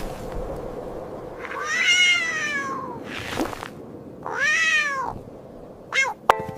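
Cat meowing: two long meows, the first falling in pitch and the second rising then falling, then a short meow near the end.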